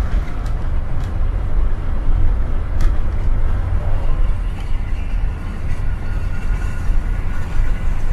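Hino diesel coach running at highway speed, heard from the front of its cabin: a steady heavy low rumble of engine and tyre noise.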